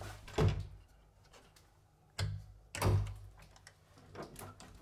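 A few dull thumps and knocks: one about half a second in, another just after two seconds, and the loudest near three seconds.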